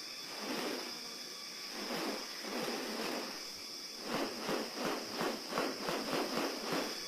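Rainforest ambience: a steady high-pitched insect drone, with a few soft swells of noise and then, about four seconds in, a quick run of short noisy pulses, about three a second.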